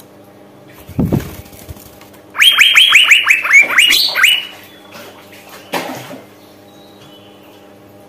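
Asian fairy-bluebird (cucak biru), a female by the title, calling a rapid string of about eight sharp, downward-sliding notes for about two seconds over a faint steady hum. A low thump comes about a second in, and a short knock comes near the end.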